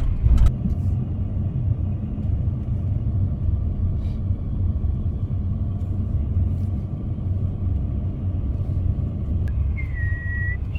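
Steady low road rumble of a car heard from inside the cabin while driving. Near the end comes a brief high tone that dips slightly in pitch and then holds.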